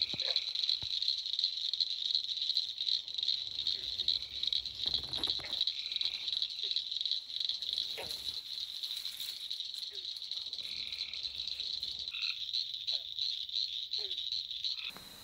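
Night chorus of calling frogs: a steady, high, pulsing trill with short chirps over it every few seconds. It cuts off suddenly near the end.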